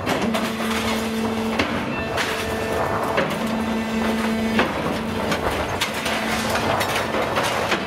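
Kajman Automatic 700 hydraulic scrap shear, a 700-ton press-shear, working steel scrap: a stream of metal clanks and knocks, with a steady drone that comes in for a second or so several times as the hydraulics work.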